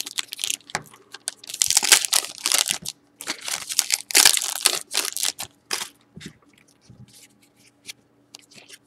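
Foil wrapper of a Panini Prizm trading-card pack being torn open and crinkled in a run of crackling rips, giving way about six seconds in to softer, scattered clicks of the cards being handled.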